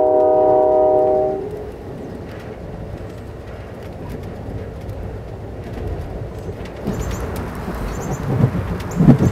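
Train horn sounding a chord of several notes for about a second and a half, followed by the steady rumble of a moving train. A few loud low thumps come near the end.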